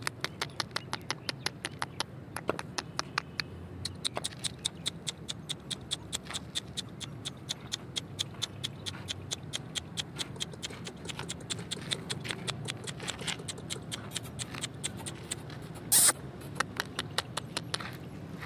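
Dog's claws clicking on a hard floor as it moves about, a quick run of light taps several times a second, with one louder short scuffing noise near the end.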